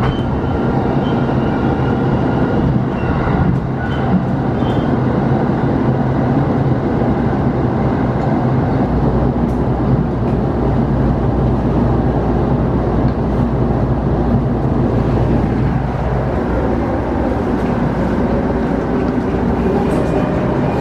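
Inside a passenger car of a JR commuter train running between stations: steady running noise with a motor hum, the low rumble growing stronger about nine seconds in.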